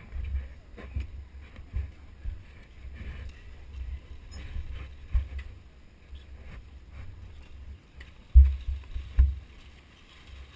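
Wind buffeting a helmet-mounted camera's microphone: an uneven low rumble with gusts, and two sharper thumps about eight and nine seconds in.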